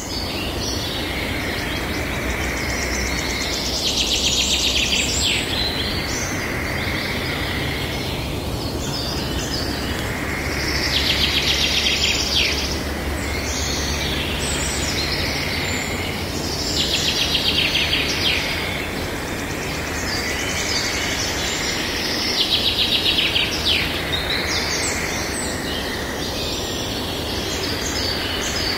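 Birds singing over steady background noise, with a fast, high trill repeated about every six seconds.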